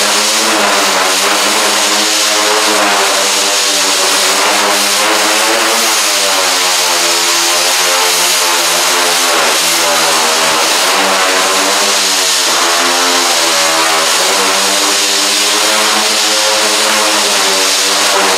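Dual-action (DA) sander running steadily while sanding primer on a car hood: a continuous whine over a loud hiss, its pitch wavering slightly as the pressure on the panel changes.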